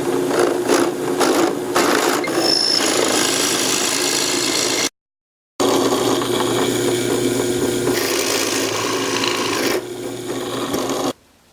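Power drill with a larger bit boring through a wooden dowel, running steadily with the bit grinding through the wood. It cuts out for about half a second about five seconds in, then runs on and stops shortly before the end.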